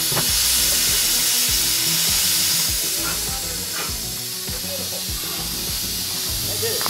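1914 Stanley 812 Mountain Wagon steam car hissing steadily as it vents steam, a little louder in the first few seconds and then easing slightly.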